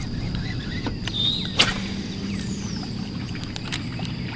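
A low, steady hum from the bass boat's motor, with scattered small clicks and one sharp click about a second and a half in.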